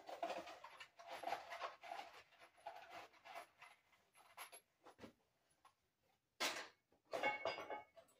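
Tools and objects being handled and shifted on a workbench: irregular rustling and scraping with scattered clicks and knocks, and two louder scrapes near the end.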